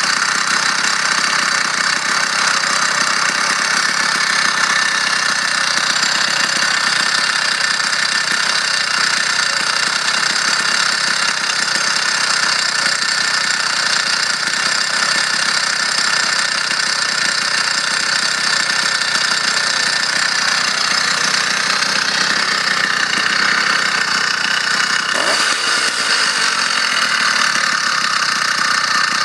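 Motorized bicycle engine running steadily with a rattle from inside the engine, whose cause the owner cannot work out although the engine runs fine and strong. A short falling sweep in pitch comes near the end.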